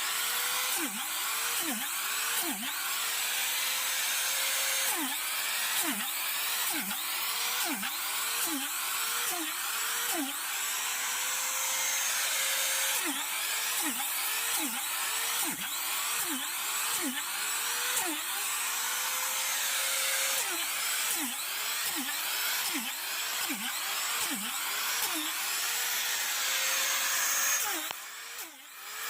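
Power drill boring holes into a log for shiitake spawn. Its motor pitch drops sharply each time the bit bites into the wood and climbs back, over and over, over a steady hiss of cutting. It stops briefly near the end.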